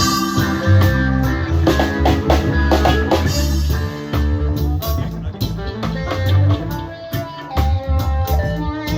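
Live band playing a song, with drum kit and guitar over a steady bass line.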